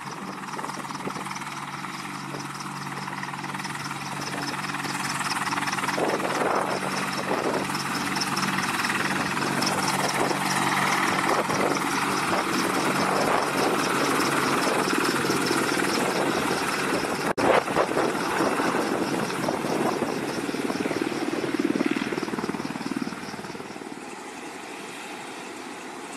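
Boeing AH-64E Apache attack helicopter running on the ground, its twin turboshaft engines and turning rotors making a steady whine and rotor noise. The sound grows louder from about five seconds in and drops back near the end.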